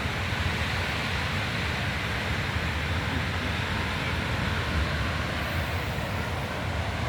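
Steady seaside noise: wind buffeting the microphone with a fluttering low rumble, over a continuous wash of sea surf.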